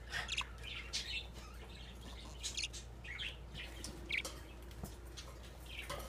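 Budgerigars chirping: short, high chirps at irregular intervals.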